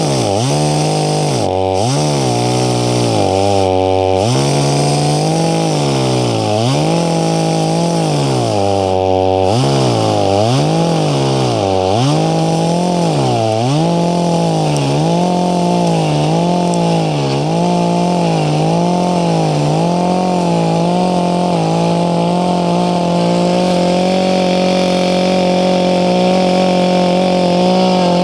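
Dolmar two-stroke chainsaw cutting through a log under load, its engine pitch dipping and climbing over and over as the chain bites into the wood and frees up, settling steadier near the end.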